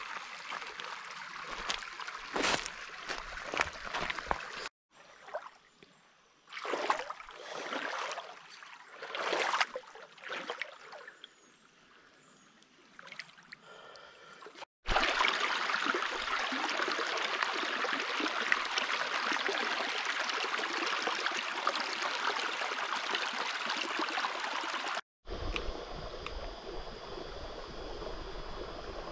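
Shallow rocky creek running over stones, a steady trickling and babbling flow. It is quieter and uneven for a stretch, then a louder, even rush of water through a shallow riffle for about ten seconds, then softer again near the end.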